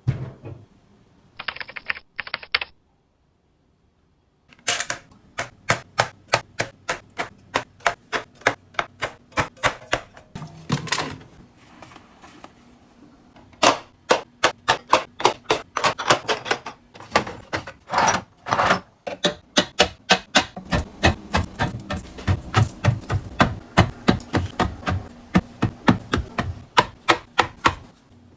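Groceries and containers being set into a fridge: a quick string of sharp clicks and knocks of packaging and containers, about three or four a second. A brief rustle comes near the start, then a short pause before the clicking begins.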